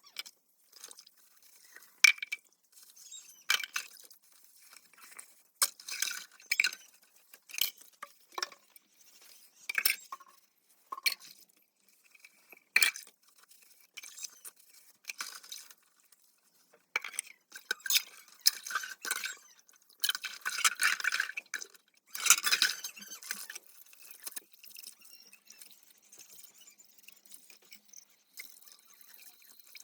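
Dishes, glasses and cutlery clinking and knocking together as they are washed by hand: separate sharp clinks at irregular intervals, with a denser burst of clattering about two-thirds of the way through.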